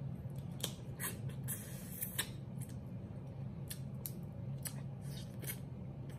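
Crab leg shells cracking and snapping as the meat is picked out by hand: a string of sharp, irregular clicks over a steady low hum.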